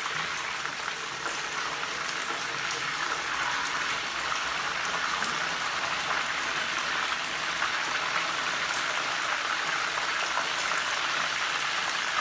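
Pieces of meat frying in hot oil in a nonstick frying pan: a steady sizzle with fine crackling, and light scrapes of a spatula turning the pieces.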